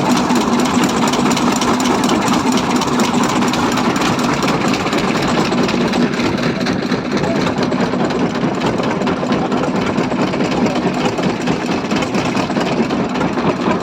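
Twin Jiangdong single-cylinder diesel boat engines running steadily at a constant speed, with a rapid even firing beat.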